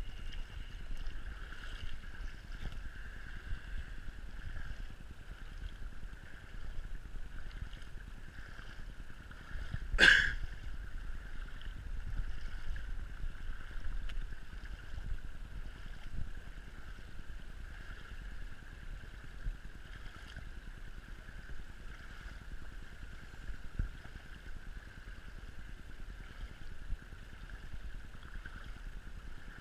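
Steady noise of flowing floodwater and wind, with one sharp knock about ten seconds in.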